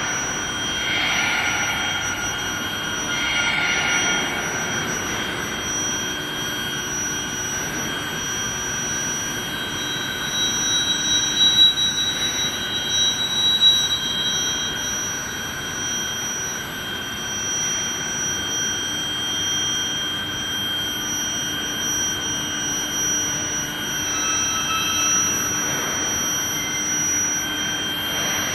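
Induction heat-treatment furnace line for threaded rebar running, a steady high-pitched whine of several constant tones over a machinery hiss, with a few brief louder noises about halfway through.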